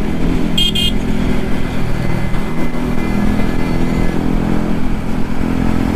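Yamaha MT-15's single-cylinder engine running steadily through an aftermarket Akrapovic exhaust while riding, with wind rumble. Two short horn beeps sound just under a second in.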